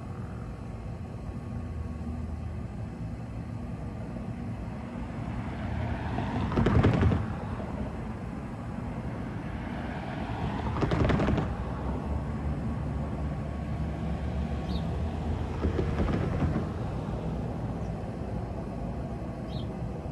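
Steady low traffic rumble with three vehicles passing one after another, each swelling up and fading away. The first pass, about seven seconds in, is the loudest.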